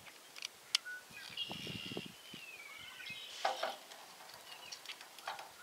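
Small clicks and scrapes of a metal pick tool and wire terminals being worked into a trailer wiring connector, the sharpest click just under a second in and a scratchy rustle about halfway through. A bird calls thinly in the background, a high held note that glides down.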